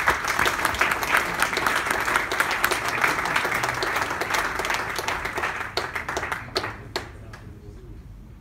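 Audience applauding: dense clapping that thins out and ends with a few last claps about seven seconds in.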